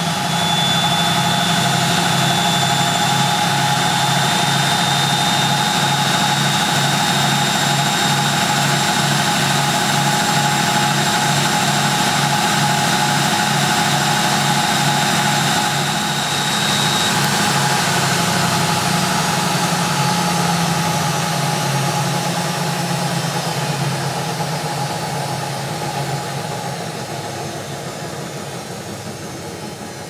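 1987 Siemens Siwamat 285 front-loading washing machine in its final spin: the motor and drum run steadily with a high whine that stops about halfway through, and then the sound gradually fades as the drum runs down.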